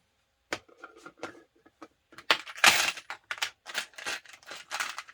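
Handling noise from cables and connectors being picked up and sorted: a run of small clicks and knocks with short rustles, and a louder scraping rustle about two and a half seconds in.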